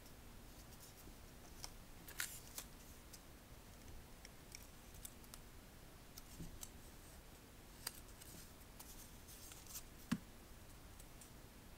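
White paper being folded and creased by hand into small origami modular units: faint, scattered crinkles and sharp little paper clicks, the loudest about ten seconds in.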